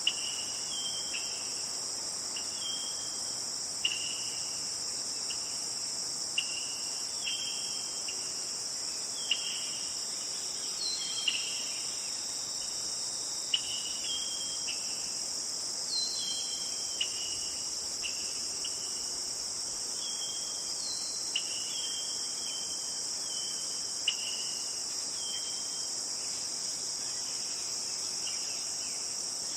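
Steady, high-pitched drone of insects such as crickets, with short chirping notes that drop slightly in pitch, repeated irregularly, and a few faint sharp clicks.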